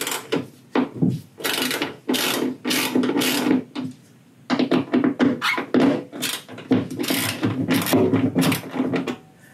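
Ratchet driver clicking in quick repeated strokes as a T30 screw holding the trunk lid handle is undone; the clicking stops near the end.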